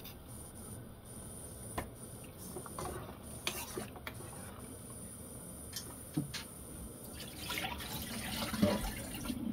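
Water with bay leaves and salt boiling hard in a wide stainless steel pot, bubbling steadily, with a few light clicks as a ladle touches the pot.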